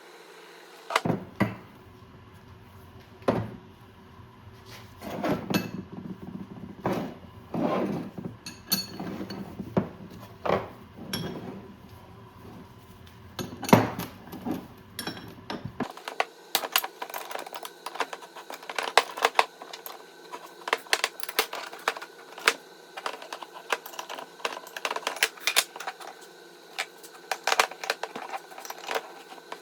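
Hand tools and small metal parts clinking, clicking and knocking irregularly on a workbench, the clicks coming faster in the second half.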